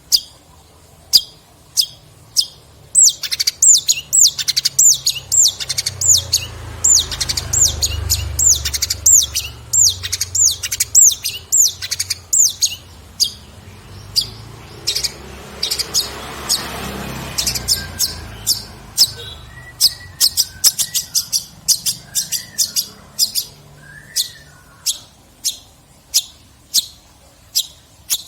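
Long-tailed shrike singing: sharp, high clipped notes repeated about twice a second, with a fast run of downward-sweeping whistled notes, about three a second, from about three to thirteen seconds in. A low rumble sits underneath through the middle.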